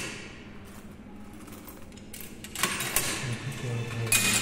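Coins and a wallet being handled, with rustling and small metallic clinks that come in two bouts, the second starting a little over halfway through. A low voice murmurs under the last second or so.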